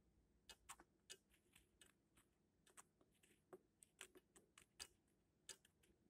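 Faint, sharp clicks in a quick, irregular run, a few per second.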